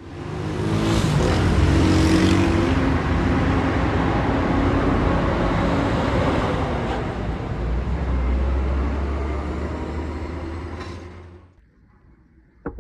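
A car driving by, with steady engine and road noise that swells in over the first second, holds, and fades out near the end.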